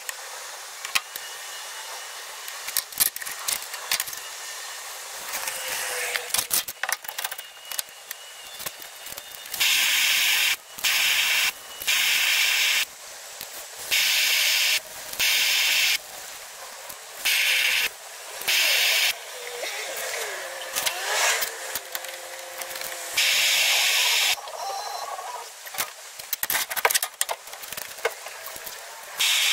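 Handheld gas torch hissing in short on-off bursts of about a second each, about eight times, as brass parts are heated for soldering. Small clicks and knocks of metal being handled come between the bursts.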